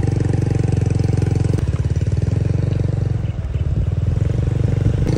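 Small motorcycle's engine running while riding, a steady fast beat; about one and a half seconds in it drops lower as the throttle eases off.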